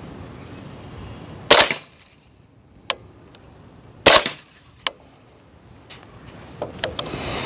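Two suppressed shots from a 300 Blackout rifle firing subsonic 220-grain ammunition, about two and a half seconds apart, each a short crack with the action cycling. A thinner sharp click follows each shot a moment later, the bullet striking steel downrange, and a few lighter clicks come near the end.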